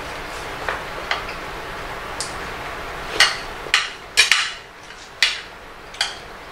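Metal cutlery clinking against ceramic dinner plates while people eat, in a string of separate sharp clinks, the loudest cluster about halfway through.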